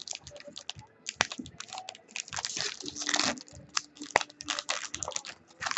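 Irregular crinkling and clicking of a trading-card pack wrapper and cards being handled as a pack is opened.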